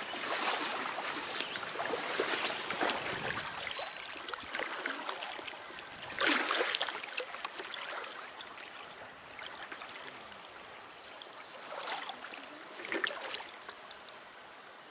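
Water sloshing and splashing around wading legs in a creek, with swishing footsteps through tall grass in the first few seconds. There are louder splashes about six seconds in and again near the end.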